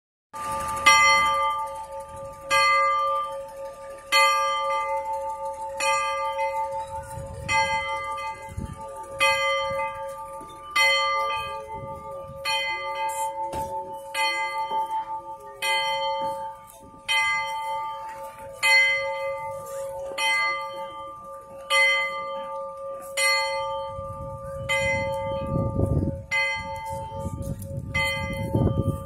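Steam locomotive bell ringing steadily, struck about every second and a half, each stroke still ringing when the next one comes.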